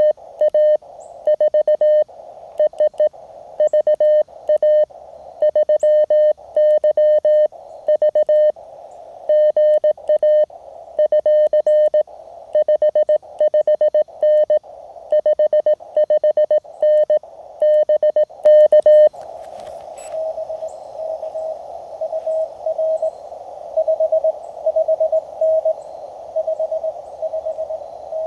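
Morse code from a Mountain Topper MTR QRP transceiver. For about the first nineteen seconds it is the loud, clean sidetone of the operator's own keying. Then the receiver opens onto a hiss of filtered band noise with a fainter Morse signal from another station at a slightly higher pitch.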